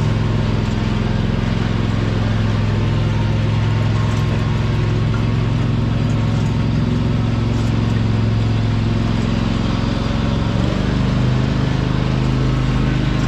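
Riding lawn mower engine running steadily under way, its pitch stepping up a little near the end.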